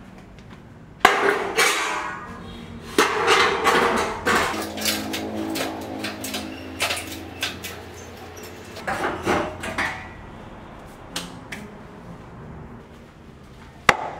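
Corrugated sheet metal clattering and rattling as it is handled and set into a stove's round opening, with loud crashes about a second in and about three seconds in, then lighter rattles and knocks. A single sharp knock near the end.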